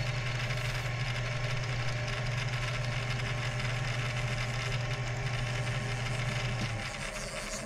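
Lathe of a 1998 Shoptask XMTC Gold lathe-mill combo running steadily while a parting tool cuts a bronze piston off the bar stock. Near the end the motor is switched off and the hum stops.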